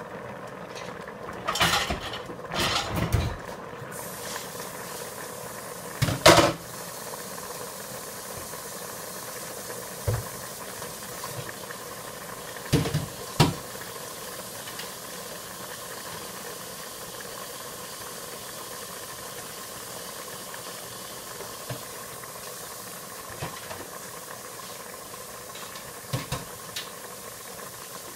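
Steady hiss of food steaming and frying in pots on a stovetop, filling out about four seconds in. A few clanks of pots and lids being handled break in, the loudest about six seconds in.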